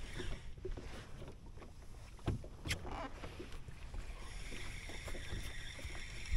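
Low rumble of wind and water around a small fishing boat, with a few light knocks. About two-thirds of the way through, a steady high whine comes in and holds.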